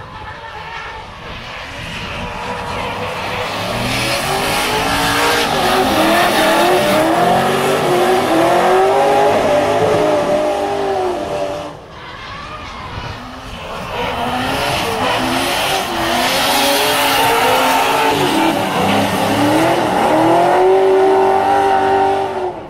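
Two drift cars in a tandem run, their engines revving up and down again and again over screeching tyres, growing louder as they come closer. The sound breaks off sharply about halfway through and then builds again the same way.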